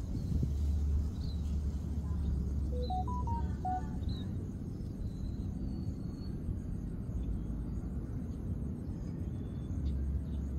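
Outdoor background sound: a steady low rumble that is heaviest in the first few seconds and again near the end. About three seconds in there is a brief run of short, stepped, whistled notes.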